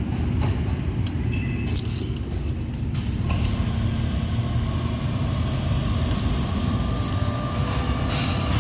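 Concrete core drilling machine running steadily, with a higher steady whine joining in about three seconds in.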